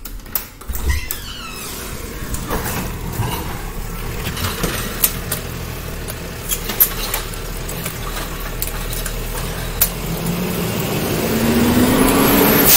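Diesel engine of an approaching garbage truck: a low steady hum that grows louder, its pitch rising, over the last couple of seconds. Scattered sharp clicks and knocks sound over it.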